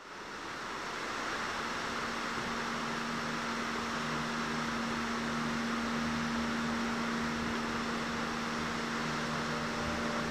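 Rushing, churning river water: a steady rush that fades in over the first second or so, with a low steady hum underneath.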